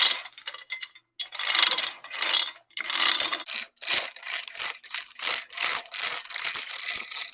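Old Yale spur-geared chain hoist being worked to lower its hook: steel chain rattling through the block and gears clicking, in a run of uneven bursts with a light metallic ring.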